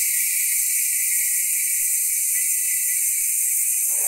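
Maxon Aggressor rear hub freewheeling as the bicycle's rear wheel spins on its own: the ratchet pawls give a loud, steady, high chainsaw-like buzz.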